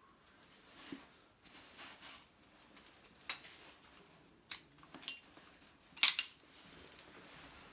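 Metal hand tools clinking and clattering as they are handled, a few sharp clinks with the loudest cluster about six seconds in, when a pipe wrench is picked up.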